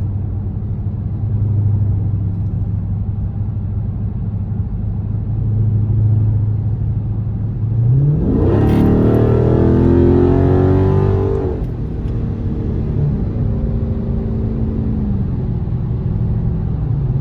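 Dodge Charger Scat Pack's 392 HEMI V8 with a Corsa exhaust, heard from inside the cabin with the windows up: a steady drone while cruising, then about eight seconds in the engine revs up hard under acceleration, loudest for about three seconds, before easing back to a steady cruise.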